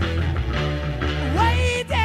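Background music with a steady bass line and a gliding, wavering lead melody.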